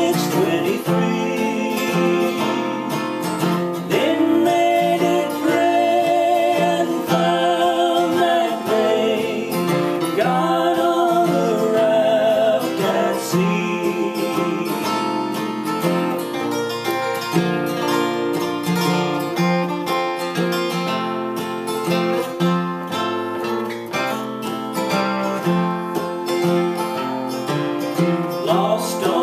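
Two acoustic guitars, one a Gibson Dove, strummed in a steady country rhythm while two men sing a gospel song in close duet harmony.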